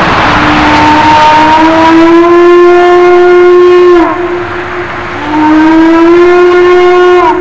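Diesel locomotive air horn sounding two long blasts, each creeping slightly up in pitch while held and dropping sharply as it cuts off.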